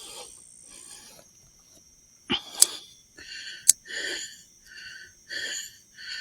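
Heavy breathing close to the microphone, a puff about every second, growing stronger in the second half. Around the middle a sudden sharp sound and two sharp clicks cut through it.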